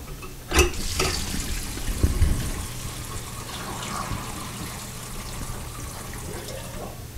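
Water draining out of a filled bathroom sink through a newly installed pop-up drain and down the drainpipe, with a few knocks in the first two seconds.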